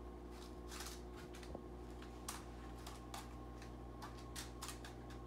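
Hands spreading a crumbly oat, flour and butter crust mixture across a parchment-lined baking pan: faint, irregular soft ticks and rustles over a steady low hum.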